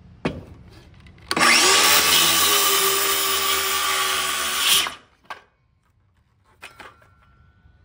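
Power drill running under load, driving a screw into 2x4 bracing, for about three and a half seconds from just over a second in, then stopping. A few light knocks come before and after.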